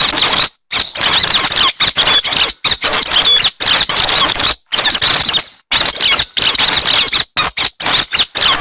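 Played-back lure recording of hec xoan bird calls: a loud, fast chatter of short squeaky notes, in stretches that cut off abruptly into brief gaps.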